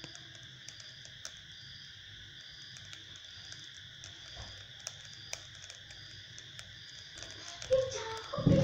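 Insects chirping steadily in the background: a constant high trill with a shorter chirp repeating above it at an even pace, and a few faint clicks. Louder sounds come in near the end.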